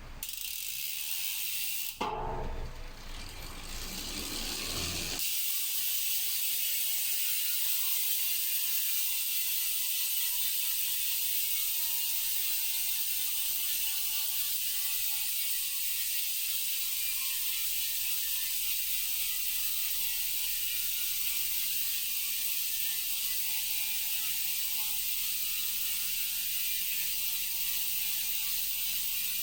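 Speedone bicycle hub with six pawls freewheeling: a fast, dense ratchet buzz from the pawls clicking over the ratchet ring. It sets in about five seconds in and falls slowly in pitch as the wheel spins down.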